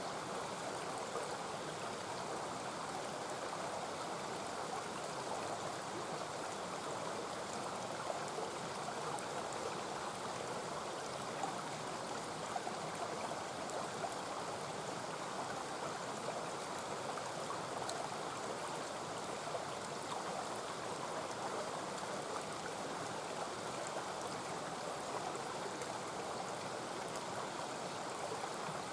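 Mountain stream rushing steadily, with a few faint crackles from the campfire now and then.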